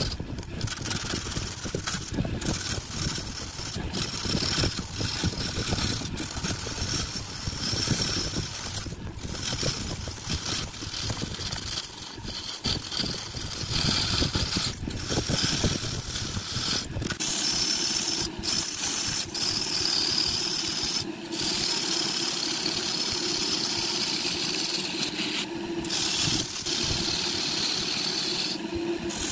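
Wood lathe running, with turning tools cutting and rubbing on the spinning wood; about two-thirds of the way through it settles into a steadier motor hum.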